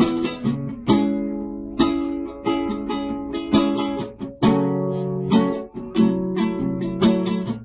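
Instrumental break in a gospel song: a plucked string instrument, guitar-like, picking out notes and chords in a steady rhythm, each note sharp at the start and then dying away.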